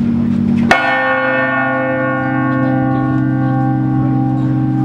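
Bronze carillon bells ringing: a deep, steady hum of bells already sounding, and about a second in a single loud strike on a bell whose ring hangs on and slowly fades.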